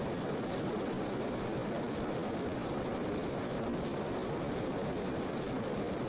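Steady rushing of running water, an even unbroken noise with no breaks or changes.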